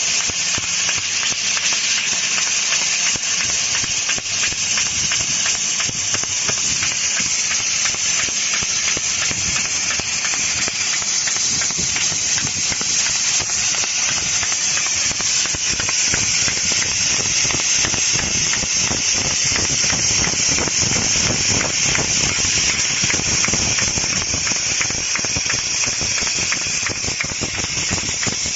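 Laser cutting machine running: a loud, steady hiss of rushing air with fine crackling ticks through it.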